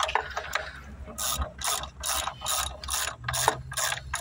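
Hand socket ratchet wrench cranked back and forth in quick even strokes, about two a second, each stroke a run of pawl clicks as it tightens the bolts clamping a fiber-optic blowing Y block shut.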